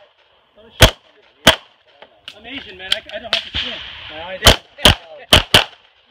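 Handgun shots fired in a run of about eight: two early on, fainter ones about halfway, then two quick pairs near the end.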